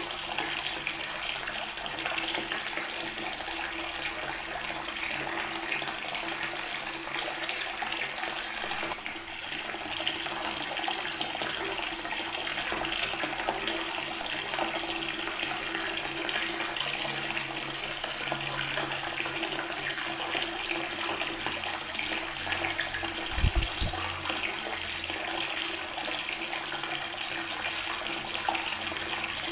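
Water tap running steadily, the stream splashing onto natural stone. There is a brief low bump about two-thirds of the way through.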